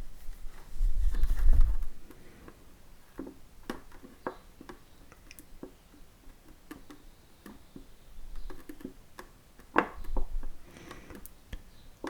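Faint, irregular clicks and light taps as a soldering iron tip is worked over a 3D-printed PETG helmet, melting the plastic to close gaps. A few dull low bumps of the helmet being handled come about a second in and again near the end.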